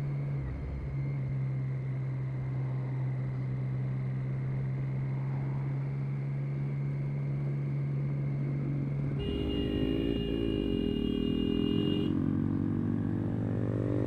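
Motorcycle engine running steadily at cruising speed, heard from on the bike. About nine seconds in the engine note wavers and drops as the bike slows, and the motorcycle's horn sounds for about three seconds, sounded at a learner rider who has pulled out.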